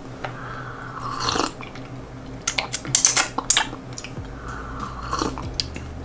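A person sipping and swallowing a drink from a glass mug: a slurping sip about a second in, a run of sharp mouth and swallow clicks in the middle, and another sip near the end.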